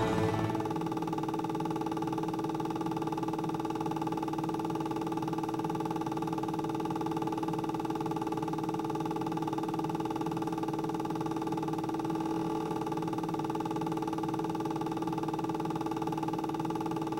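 A steady hum of several held tones sounding together, unchanging in pitch and level.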